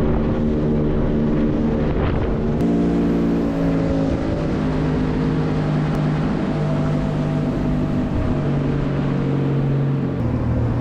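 A small aluminium boat's outboard motor running steadily under way. Its note holds a steady pitch and jumps to a different pitch a few times, where separate clips are cut together.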